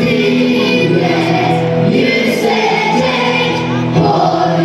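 A choir singing with musical accompaniment.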